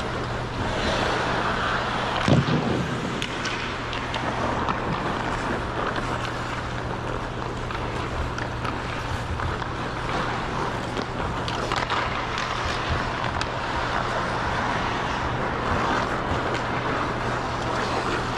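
Ice skates gliding and scraping over the rink, mixed with wind buffeting the moving camera's microphone, over a steady low hum. A single louder thump about two seconds in.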